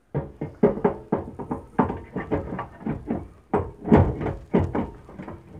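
Metal knocks and clunks from a replacement LG microwave magnetron being worked by hand into the oven's sheet-metal housing and hooked into place. A rapid, irregular string of knocks, the loudest about four seconds in.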